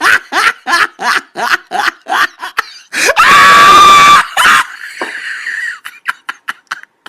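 Laughter in quick, rhythmic bursts, then about three seconds in a loud, high-pitched sound held steady for about a second, followed by a few more short bursts of laughter.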